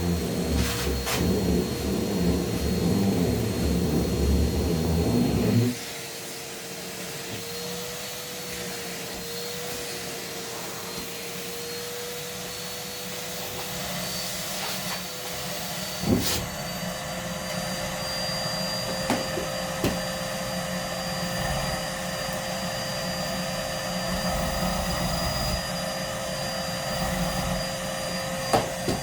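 Numatic Hetty vacuum cleaner running with its nozzle blocked against socks and feet. For the first six seconds it makes a loud, fluttering rumble, then it drops suddenly to a quieter, steady whine as the suction is sealed off, with the pitch wavering and then creeping up. A few sharp knocks come later on.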